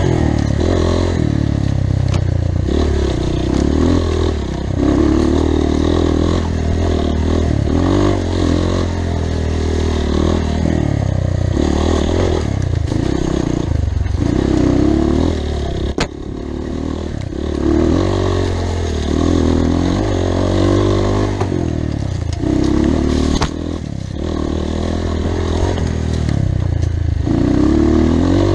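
Off-road motorcycle engine running loudly, its pitch rising and falling over and over as the throttle is worked, with rattling and scraping over rough ground. A sharp click sounds about 16 seconds in.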